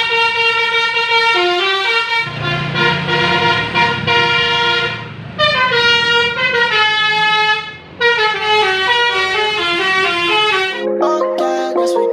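A 'telolet basuri' multi-tone bus horn playing a melody in quick stepped notes, in phrases with short breaks, over a low rumble for much of the time. Near the end it gives way to plucked-string music.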